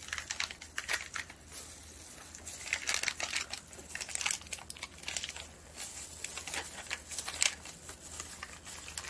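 Crinkling of a plastic snack-bar wrapper and disposable plastic glove, in irregular crackles, as a duck-meat energy bar is opened and squeezed out of its packet.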